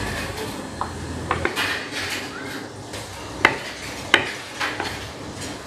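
Large kitchen knife chopping boiled taro into small pieces on a plastic cutting board: irregular sharp knocks of the blade against the board, the two loudest about three and a half and four seconds in.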